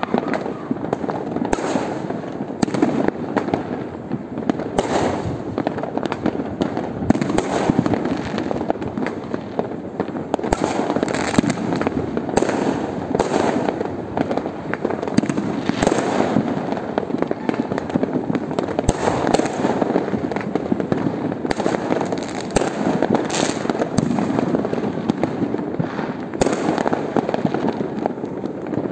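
Many fireworks and firecrackers going off at once in a dense, unbroken crackle of bangs and pops, with louder single bangs standing out every second or two.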